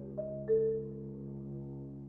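Tuba holding a sustained low note while a marimba strikes two ringing notes about a third of a second apart near the start.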